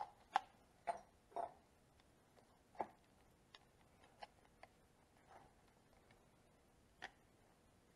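Scattered light clicks and knocks of hand tools being handled and picked up on a workbench, about nine separate ticks at uneven intervals. The electric screwdriver's motor is not running.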